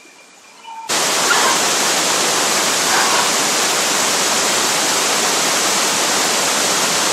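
Waterfall's rushing water, a loud steady rush that starts abruptly about a second in.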